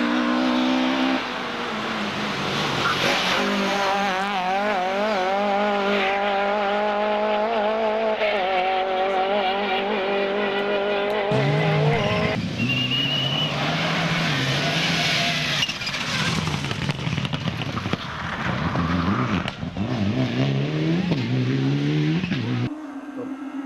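Race car engines at high revs, their pitch rising, falling and wavering with throttle and gear changes, in a run of clips that cut abruptly from one car to the next, with some tyre squeal.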